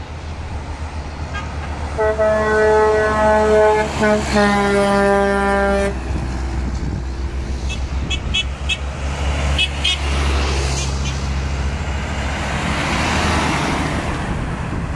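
A truck's horn sounding in a long toot, broken once, for about four seconds, over the low drone of diesel truck engines. Near the end a tip truck passes close by with a swelling rush of engine and tyre noise.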